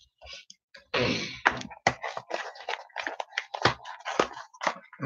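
A quick run of taps, clicks and rustles from containers and packaging being handled on a tabletop, with a louder scrape about a second in.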